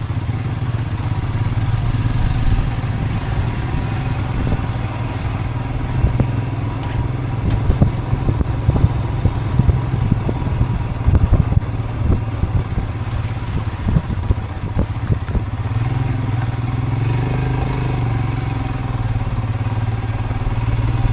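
Motorcycle engine running steadily under way. Through the middle stretch come many sharp knocks and rattles from the bike jolting over rough, broken road.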